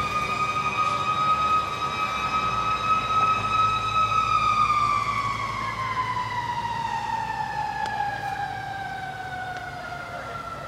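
Fire engine siren sounding one long note, held at a steady pitch for about four seconds and then slowly falling in pitch, growing fainter as the truck drives away.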